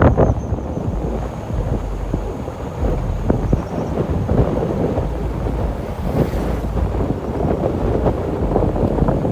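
Wind buffeting the microphone, a steady low rumble with crackling running through it.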